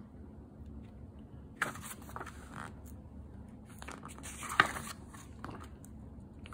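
Paper pages of a large book being handled and turned: rustling, rubbing and a few sharp crackles that start about a second and a half in, the sharpest crackle about four and a half seconds in.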